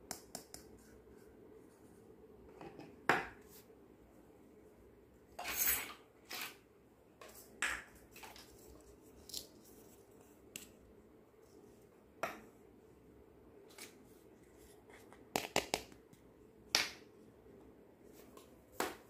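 Hard plastic toy kitchen pieces, a toy cup and a toy ice cream cone, handled and set down on a table: irregular light clicks and taps, with a short scrape about five to six seconds in and a quick run of taps around fifteen seconds.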